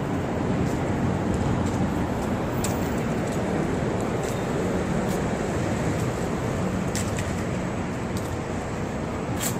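Steady road traffic noise from buses and cars, a continuous low rumble, with a few faint scattered ticks.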